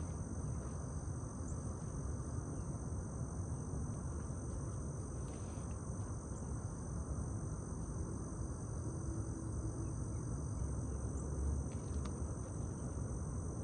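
Steady high-pitched insect chorus with no break, over a low rumble.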